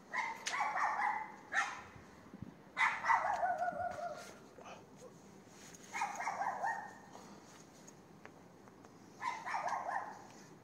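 Dog barking in four bouts, each about a second of rapid barks, roughly every three seconds.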